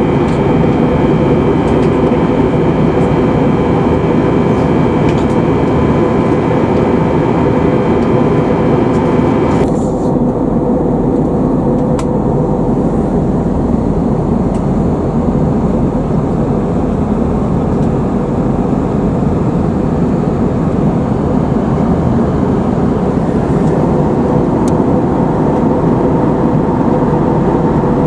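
Steady cabin noise of an Airbus A320-251N in flight: the drone of its CFM LEAP-1A engines and rushing air, with a steady hum. A set of high steady tones and part of the hiss cut off suddenly about ten seconds in.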